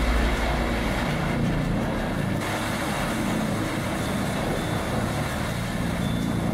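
Heavy diesel machinery running steadily with mechanical clatter, the character of the sound changing abruptly about two and a half seconds in.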